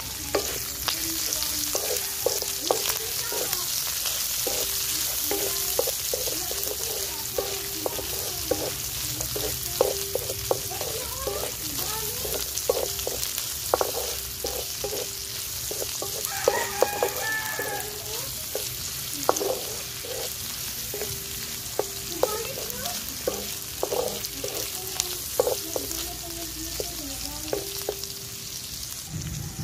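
Pork, onion and bell pepper strips sizzling in a metal wok, with a wooden spatula repeatedly scraping and tapping against the pan as it stirs.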